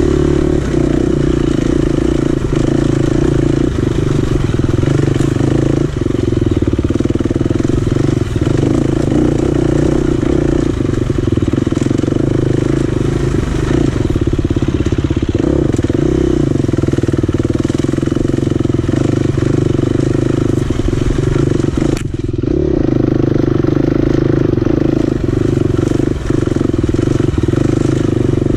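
Dirt bike engine running steadily under throttle while the bike is ridden along a dirt trail. The engine eases off briefly about three quarters of the way through, then picks back up.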